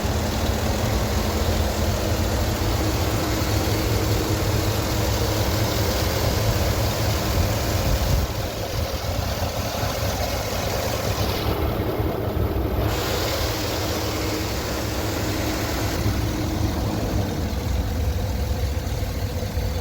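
Cadillac Escalade engine running steadily with a low rumble, and no speech over it.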